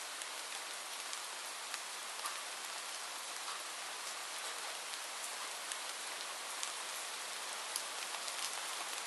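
Steady rain falling: an even hiss with many scattered ticks of individual drops.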